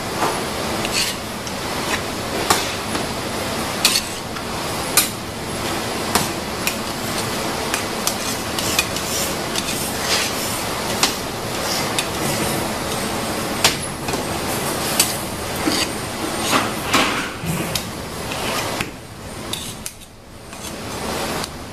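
Metal spatula and tools knocking and clinking against a fish-shaped kamaboko mould and the work table as surimi paste is smoothed. The sharp clicks come irregularly, about one a second, over a steady hiss, and fall off near the end.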